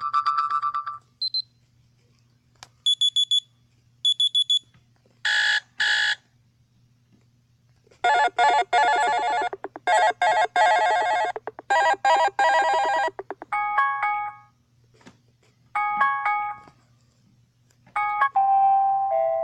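A phone's ringtones previewed one after another: short electronic melodies and chimes, each cut off after a second or a few, with silent gaps between them. The longest is a tune of about five seconds in the middle, and another begins near the end.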